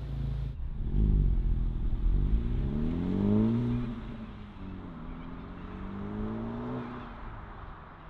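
Honda FL5 Civic Type R's K20C turbocharged four-cylinder on its stock exhaust, valve held open, accelerating hard from a standstill. The engine note rises, drops at an upshift just under four seconds in, then climbs again through the next gear as the car pulls away and fades.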